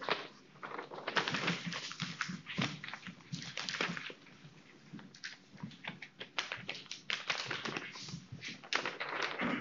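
Paper being folded and creased into paper airplanes: quick, irregular rustles and crackles of the sheets, with a short lull midway.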